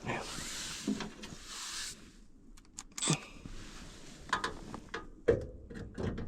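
Hands working on sheet-metal furnace parts while fitting an inducer motor: about two seconds of rustling and scraping, then a few separate clicks and knocks.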